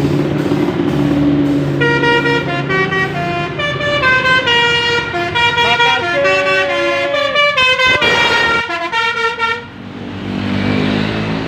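Bus 'telolet' horn playing a quick tune of stepped notes, several horn tones sounding together, over the bus's engine. The horn starts about two seconds in and cuts off near the end, leaving the engine running.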